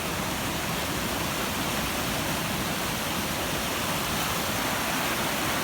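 Rushing floodwater in a swollen creek, a steady loud roar of fast-flowing water.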